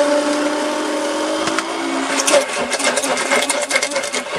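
Handheld immersion blender running in a tall cup, emulsifying egg, lemon and a stream of oil into mayonnaise. A steady motor hum for about two seconds, then the hum weakens and rapid wet clicking and spluttering takes over as the blade works the mixture.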